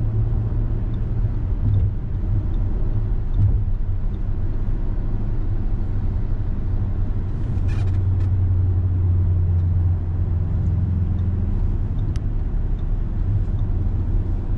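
Audi Q7 driving: steady low road and engine rumble, the low hum swelling for a few seconds past the middle.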